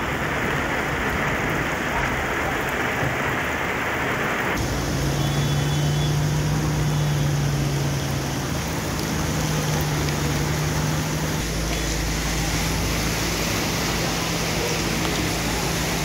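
Steady rain and water noise on a flooded street, with vehicle engines running at a low hum as trucks and cars move through the floodwater. The sound changes abruptly twice, about a third of the way in and again past the middle.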